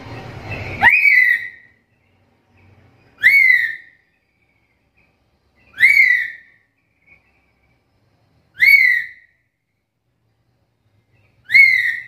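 Black-capped lory giving its whistled call five times, each a quick upward-swooping whistle about every two and a half to three seconds. A short harsh, noisy sound comes first, leading into the first whistle.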